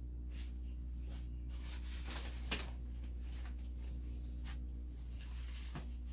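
Steady low hum with scattered light clicks and rustles of things being handled, and one sharper click about two and a half seconds in.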